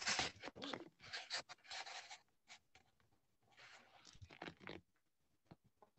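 Faint, irregular scratchy rustling noises in short bursts, densest in the first two seconds and again about four seconds in.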